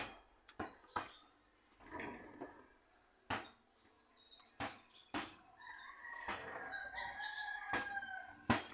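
A rooster crowing in the background, one long call from about six seconds in, over a run of sharp clicks and knocks from eating.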